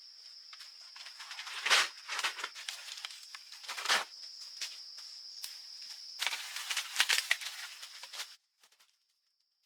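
A steady high insect drone, with close rustling and crackling of dry vegetation. There are two louder cracks, about two and four seconds in, and a dense stretch of rustling before the sound cuts out abruptly near the end.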